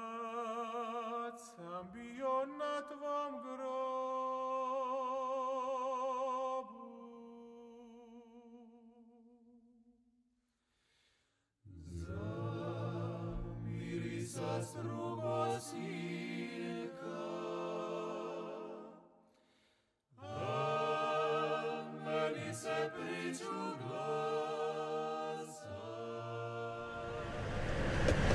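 Unaccompanied choral singing, in three phrases with short silences between them, the first with wavering held notes. Near the end a rising hiss of outdoor noise fades in.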